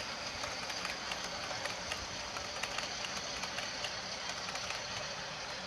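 Model railway train running along the track, a steady rumble and whir with irregular clicks from the wheels over the rail joints.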